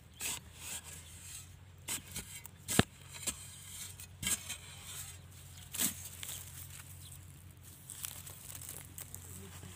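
Metal-bladed digging tool scraping and chipping at dry clay soil around a crab burrow, with crumbling earth: irregular scrapes and knocks, the sharpest a little under three seconds in, over a faint low hum.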